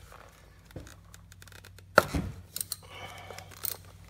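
Metal hand tools clicking and knocking as a socket extension and ratchet are worked down a spark plug well, with one sharp knock about halfway through followed by a run of light, irregular clicks.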